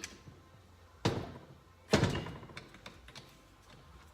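Two knocks, the second louder, then a few light clicks, as the stator assembly of a small two-stroke motorcycle engine is lifted off the crankcase and handled on the workbench.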